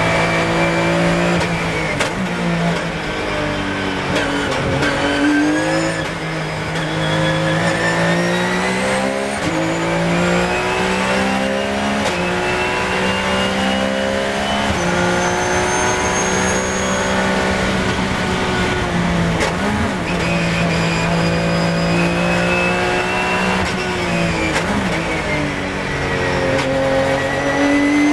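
Porsche 997 GT3 Cup's flat-six engine at racing speed, heard from inside the cockpit. The pitch climbs as the car accelerates through the gears and drops away sharply a few times as it brakes and shifts down for corners.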